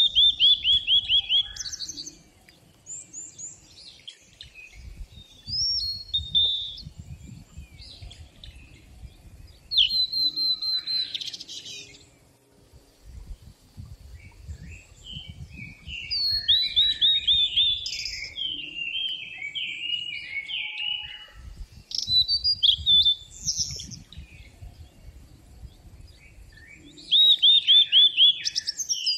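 Songbirds singing. One bird repeats a fast run of about ten short, high, falling notes, once at the start and again near the end, while other birds chirp and warble in between. A low rumble comes and goes underneath.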